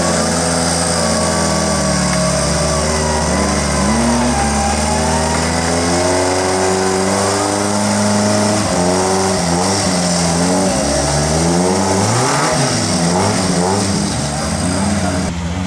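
Engine of a caged off-road 4x4 labouring as it crawls out of a mud pit: steady revs at first, then revving up and down repeatedly through the second half.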